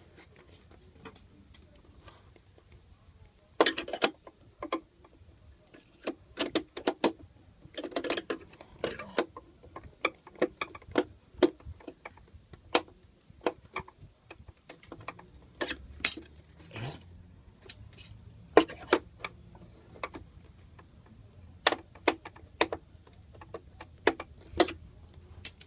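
Irregular clicks, taps and knocks of small plastic and metal parts and tools being handled while a paper shredder is worked on, some in quick clusters and some alone.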